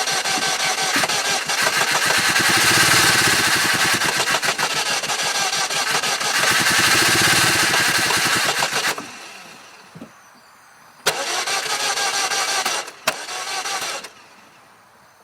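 2000 Saturn LS engine being cranked by the starter and struggling to start, a long crank of about nine seconds, then a second, shorter attempt about two seconds later. This is a no-start fault that a newly replaced fuel filter has not cured.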